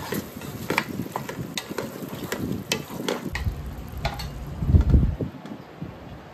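Wooden spatula stirring thick mutton masala in a nonstick pot: irregular scrapes and clicks of wood against the pan over a faint sizzle. A dull, louder bump comes a little before five seconds in.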